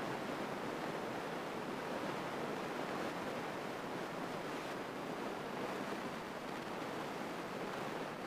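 Steady rushing cabin noise of a Grumman light single-engine airplane in cruise flight: engine and airflow blend into an even hiss with no distinct engine tone or other events.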